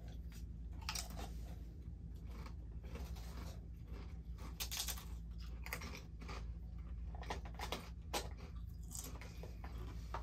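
Pringles potato crisps being bitten and chewed: irregular crisp crunches and crackles.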